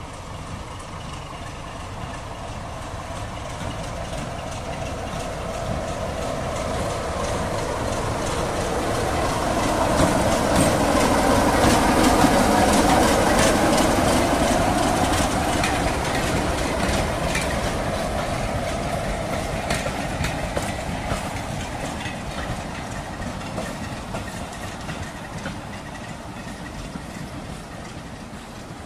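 BR Class 33 'Crompton' diesel locomotive with its Sulzer eight-cylinder engine running, hauling coaches past. The engine drone and the wheels clicking over rail joints grow louder as it approaches, peak about twelve seconds in as it passes, then fade as the train goes away.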